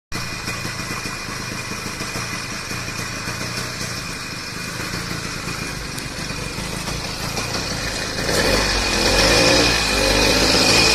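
A 70cc two-stroke motorized-bicycle engine running steadily, growing louder from about eight seconds in.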